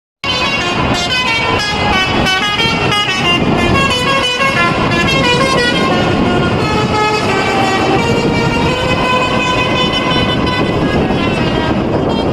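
Telolet horn on a lorry playing a tune of quickly changing notes, then longer held notes, over engine and road noise.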